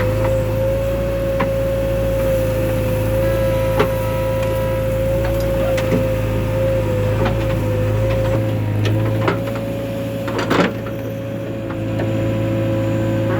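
JCB 3DX backhoe loader running steadily, its diesel engine humming under a constant high whine, with scattered knocks and clunks of the digging gear and a longer clatter near the end. The deepest part of the engine sound drops away about two thirds of the way through.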